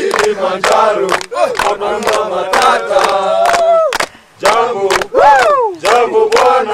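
A group of men chanting and shouting together, with rising-and-falling calls over hand clapping in time, about three claps a second. There is a short lull about four seconds in.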